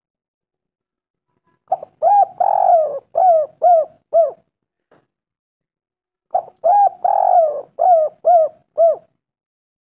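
Spotted dove cooing: two call phrases about two seconds apart, each made of two short coos, one longer and rougher coo, then three clipped coos.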